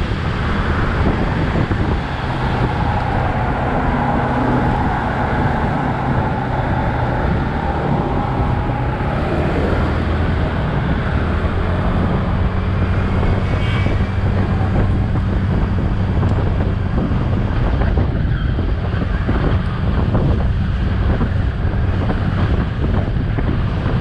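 Small motorcycle riding on a highway: steady wind buffeting the microphone over the engine's constant hum, with car traffic alongside.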